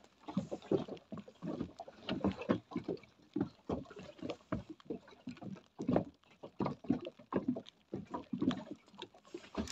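Water slapping and lapping against the hull of a small boat: an irregular run of soft knocks and splashes, several a second.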